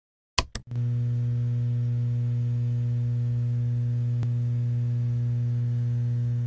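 Intro sound effect: two quick switch-like clicks, then a steady low electrical hum that holds unchanged, with a faint tick a little past halfway.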